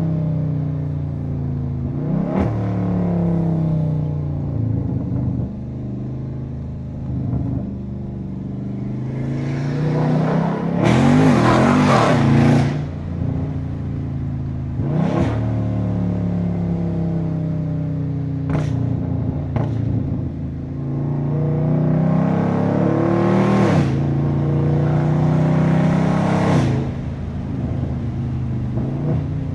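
Catless, tuned 392 HEMI V8 of a Dodge Scat Pack accelerating hard and easing off repeatedly, its pitch climbing and dropping through the gears. Two long loud wide-open-throttle pulls come about a third of the way in and again near three-quarters, with a few brief sharp cracks between them.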